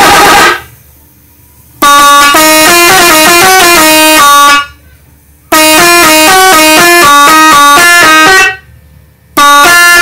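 Six-trumpet telolet horn set, chrome horns switched by a Bluetooth module, playing loud telolet melodies of quickly stepping notes. It plays in bursts with short pauses between them.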